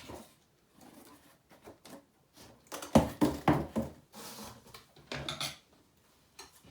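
Clattering and clinking of animatronic prop parts and packaging being handled: scattered light knocks, with a quick run of knocks and rattles about three seconds in.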